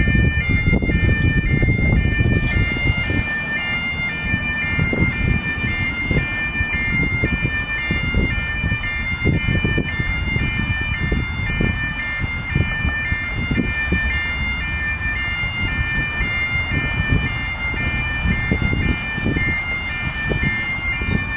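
Railway crossing warning alarm at a station, a two-tone electronic alarm sounding steadily and alternating evenly between two pitches, over a low rumble.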